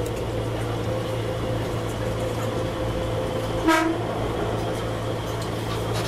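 Odakyu 3100-series NSE Romancecar running, heard from its front observation seat: a steady low hum of the moving train, with one short horn toot about three and a half seconds in.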